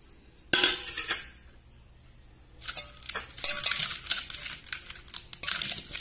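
Fingers mixing dry spice powders in a steel pot: a brief clatter against the metal about half a second in, then, from about the middle on, a busy, uneven scraping and rustling as the powder is rubbed around the bottom of the pot.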